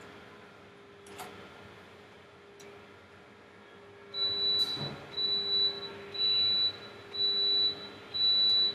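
Electronic beeper sounding a high, steady tone over and over, about once a second, each beep a little over half a second long, starting about four seconds in. A low steady hum runs underneath.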